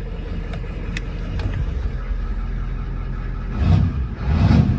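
Ford 7.3 IDI V8 diesel running at a steady idle, then revved twice in short blips near the end. The engine is a little cold-blooded and, by the owner's reckoning, needs injectors.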